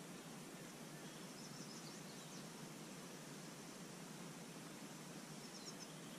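Faint outdoor ambience: a steady hiss with a few brief high bird chirps, one cluster about one and a half to two and a half seconds in and another near the end.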